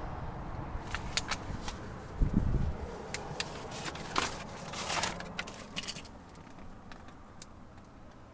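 A run of light clicks, ticks and rustles, like keys and handling noise, with one dull thump about two seconds in; it grows quieter after about six seconds.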